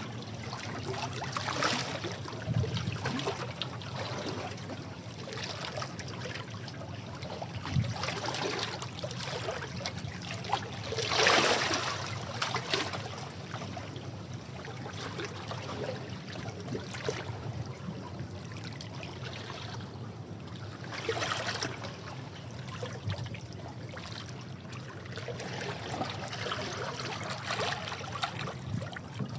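Sea waves washing against rocks, water sloshing and draining in uneven surges, with one louder wash about eleven seconds in.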